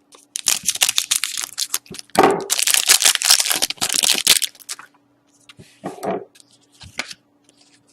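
Foil trading-card pack wrapper being torn open and crinkled by hand, a dense crackling for about four seconds, followed by a few light rustles and clicks as the cards are handled.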